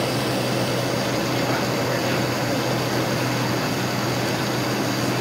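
Steady cabin noise in a Boeing 787-9 airliner heard from a window seat beside the engine on the descent: an even rushing of engine and airflow with a steady low hum beneath it.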